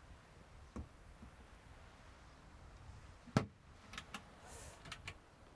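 Cupboard door of a campervan's slide-out kitchen unit shut with one sharp knock about three and a half seconds in, followed by a few light clicks.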